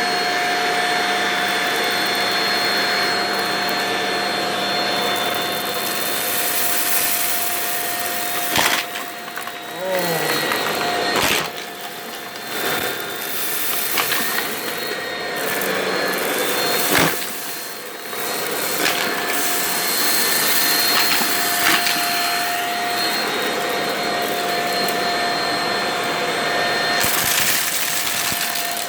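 Vacuum cleaner running steadily with a high motor whine while sucking up dry pasta and rice from a carpet, with a few sharp clacks of pieces going up the nozzle and a brief drop in the motor's pitch about ten seconds in.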